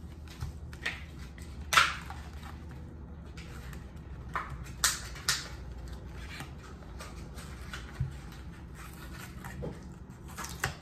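Scattered rustles and sharp clicks of a toy blind-bag pack being handled and opened, the loudest about two seconds in and twice around five seconds in.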